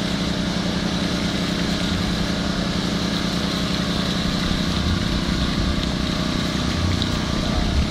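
Small engine-driven water pump running steadily at a constant speed, forcing water down a pipe to jet-drill a water well.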